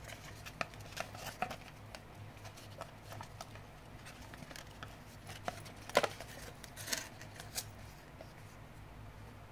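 Hands handling packaging and small objects: scattered light clicks, taps and rustles, with one sharp click about six seconds in as the loudest.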